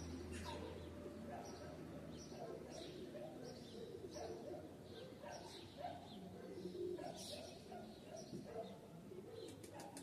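Several birds chirping in short, scattered calls, with lower cooing calls among them. A faint low hum fades out about four seconds in.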